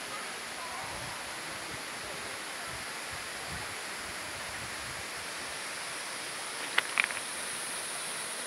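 Steady rush of a waterfall plunging into a rocky gorge. Two sharp clicks come close together about seven seconds in.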